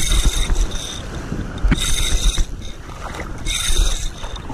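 Saragosa spinning reel whirring in short bursts about every second and a half while a hooked fish is reeled in close to shore. Wind rumbles on the microphone underneath.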